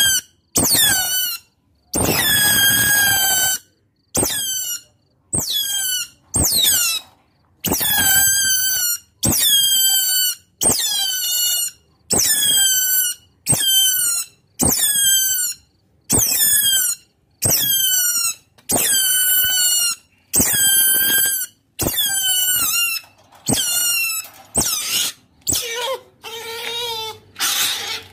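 Otter calling: a long run of loud, high-pitched calls, each falling in pitch at its end, repeated a little more than once a second. In the last few seconds the calls come quicker and mix in lower-pitched notes.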